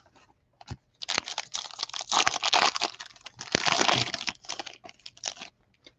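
A stack of Panini Prizm football cards being handled and flicked through, the cards clicking against each other, with the plastic pack wrapper crinkling.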